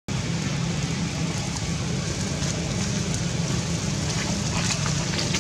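Steady low motor hum under an even hiss, with a few faint crackles near the end.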